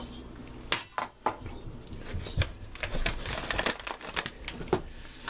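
Paper bag of granulated sugar crinkling and rustling as it is handled, with several sharp clicks and knocks on the countertop.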